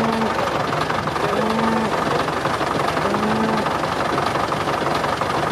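Heavy construction machinery running steadily with a dense rattle, and a low tone that swells and falls back about every second and a half.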